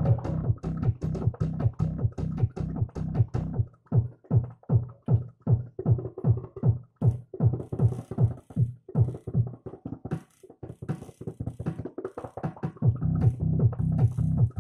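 Live freetekno from a Korg Electribe EMX groovebox: a fast, driving drum-machine beat with heavy kick and bass hits and synth sounds over it. The low end thins out about ten seconds in and comes back in force near the end.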